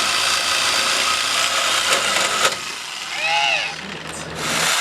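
Reciprocating saw (Sawzall) running as it cuts into the exhaust pipe, stopping about two and a half seconds in. A brief voice follows, and the saw runs again for a moment near the end.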